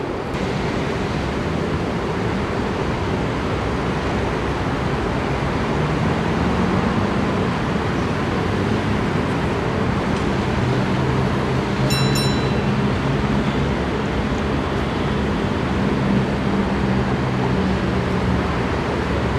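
Tram running slowly away along its track amid steady city traffic noise. A low hum joins about a third of the way in, and a short high-pitched ringing tone sounds twice about halfway through.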